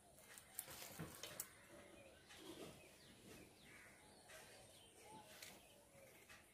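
Near silence: soft handling of a sheet of paper with a few faint ticks in the first second or so, and faint bird chirps in the background.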